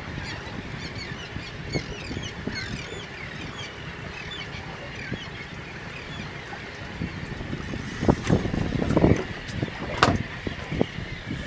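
Seabirds calling, many short high chirping calls in quick succession over the first half, over a steady low noise of wind and water. From about eight seconds in, a few knocks and rumbling bumps are the loudest sounds.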